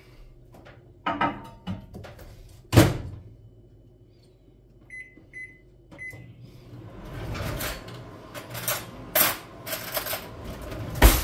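Microwave oven being used: a loud thump, then three short high beeps from its keypad, then clattering and knocks, with one loud knock near the end.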